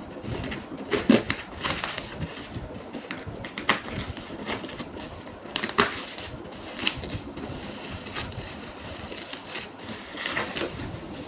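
A nebuliser machine's cardboard box and plastic packaging being opened and handled: irregular rustling and crinkling with scattered sharp knocks and clicks, the loudest about a second in and again near six seconds.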